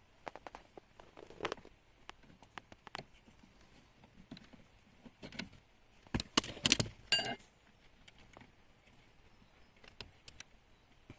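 Small metal parts and tools clicking and clinking as they are handled, with a louder metallic clatter that rings briefly about six to seven seconds in.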